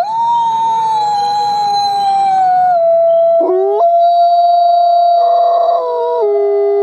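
Several wolves howling together. One long howl sweeps up at the start and slowly slides lower, a second wolf adds a short rising howl about three and a half seconds in, and a lower howl takes over near the end.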